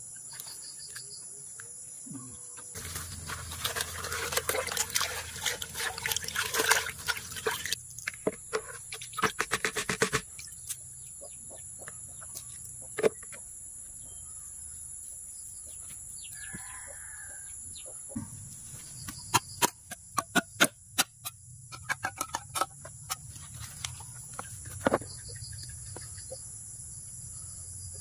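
Chickens clucking, with a rooster crowing, over a steady high-pitched drone of crickets. About three seconds in comes several seconds of loud handling noise, and sharp clicks follow later.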